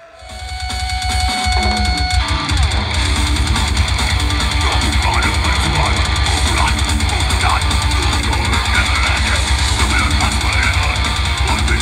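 Goregrind band playing live. A single held guitar tone rings for about two seconds, then the full band comes in, loud and dense, with heavily distorted guitars, bass, fast drums and growled vocals.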